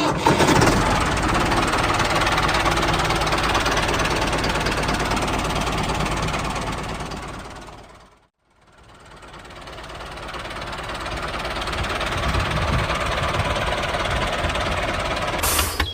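Mini tractor running with a steady mechanical knocking rumble. It fades out about eight seconds in and then fades back up.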